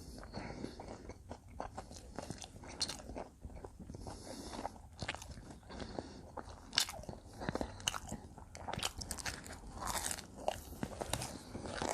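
Close-up mouth sounds of a person biting and chewing combination pizza, with crisp crust crunching in short irregular crackles.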